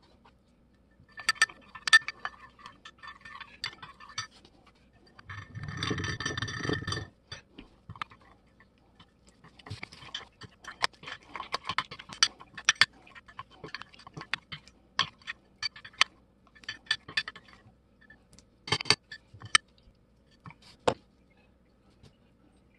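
Metal spoon stirring and scraping plaster of Paris in a glass dish, with sharp clinks of metal on glass. About five seconds in, a denser rushing sound lasts about two seconds.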